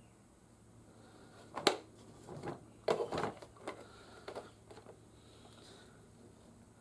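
Plastic toy parts being handled: a sharp click about a second and a half in, then a run of smaller clicks and rattles over the next few seconds.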